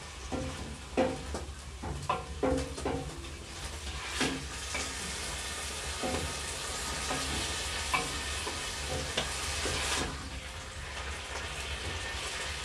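Cubed chicken sizzling as it sautés in oil in a steel stockpot, stirred with a utensil that knocks and scrapes against the pot with a brief metallic ring, most often in the first few seconds.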